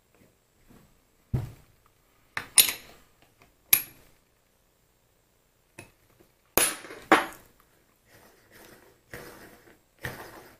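Steel mini-lathe apron parts clinking and knocking against each other and the workbench as they are handled: several separate sharp metallic clinks with softer scuffs between.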